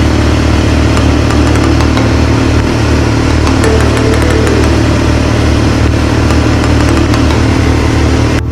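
ATV engine running steadily under load, with a sudden cut near the end.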